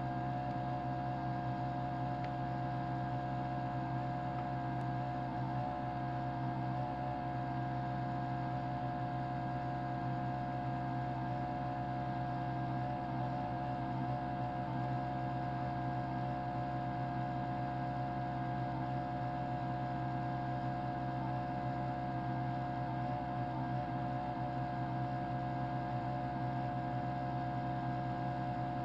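A 32-line mechanical television's scanning motor running at constant speed: a steady drone made of several held tones, one low and one higher and slightly wavering.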